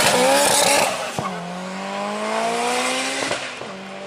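Turbocharged VW Golf Mk2's 1.8-litre 16-valve KR engine accelerating hard down a drag strip. The revs climb in each gear, and there are upshifts about a second in and again near three seconds in. The engine is loudest at first, then quieter as the car pulls away.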